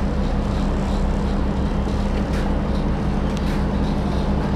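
A ferry's engine running steadily underway: an even, low drone with a constant hum.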